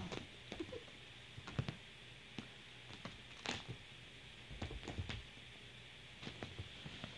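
A kitten scrabbling about on a fabric couch: irregular soft taps and scuffs of its paws and claws on the upholstery, with a cluster of them about five seconds in, over a faint steady hiss.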